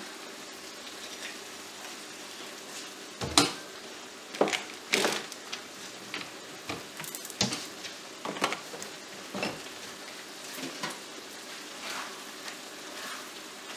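Chicken chop suey sizzling in a skillet as its cornstarch-thickened sauce finishes cooking, stirred with a utensil that knocks and scrapes against the pan a dozen or so times at irregular intervals over a steady low hiss.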